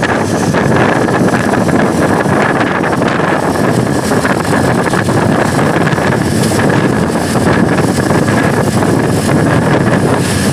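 Wind rushing over the microphone and engine and road noise while driving close behind a loaded truck, steady throughout, with a thin steady high whine running through it.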